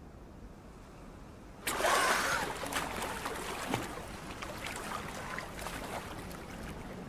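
Muffled quiet while the GoPro sits at the waterline in a muddy pit, then suddenly, about a second and a half in, loud splashing and water streaming close around the camera, with many small ticks like drops hitting the housing, settling into a steadier wash.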